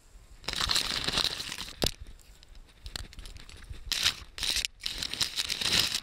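Tussock grass rustling and scraping against a camera strapped to a dog's back as the dog pushes through it, in irregular bursts, with a sharp knock near two seconds in and another about a second later.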